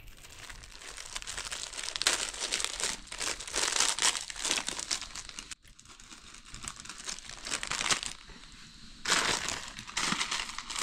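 Plastic instant-noodle packets crinkling and rustling as they are handled and torn open, in bursts with a short pause near the middle.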